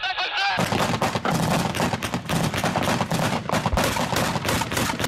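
Rapid automatic gunfire, several sharp shots a second in a sustained volley, starting about half a second in and running on for about four seconds.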